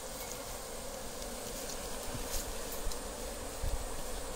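A mass of wild honeybees buzzing steadily, with a brief low thump about three and a half seconds in.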